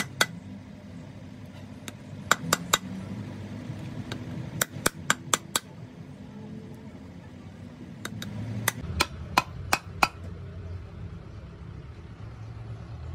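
Sharp metallic hammer blows on a steel truck brake shoe, coming in quick clusters of three to six strikes with pauses between, as the old riveted lining is knocked off.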